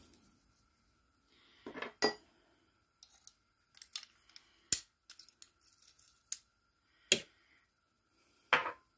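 Metal garlic press squeezing garlic cloves and knocking against a ceramic dish: four sharp clacks a couple of seconds apart, with small clicks and ticks of the press's handles between.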